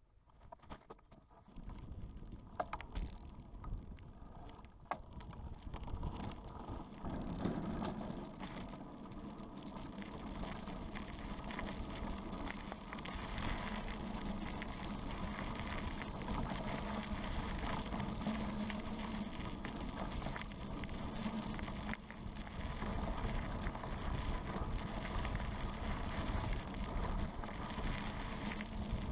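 Mountain bike setting off and riding along a path, heard from a camera mounted low on the frame: tyres rolling, with a few sharp knocks and clicks as it gets going, and a steady hum that comes in about seven seconds in.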